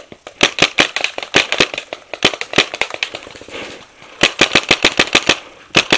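Tippmann X7 paintball marker firing in rapid strings of sharp pops, about seven shots a second, in several bursts with short pauses between.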